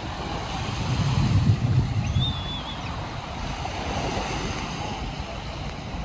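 Small waves breaking and washing on a sandy beach, with wind buffeting the microphone, strongest about a second in.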